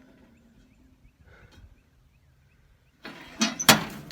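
Quiet at first, then about three seconds in a sudden run of knocks and rattling from the bullet-riddled metal grill being handled.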